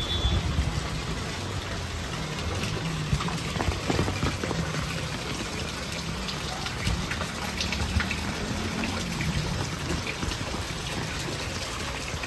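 Floodwater rushing along a flooded street: a steady wash of moving water with a low rumble underneath and scattered small splashes.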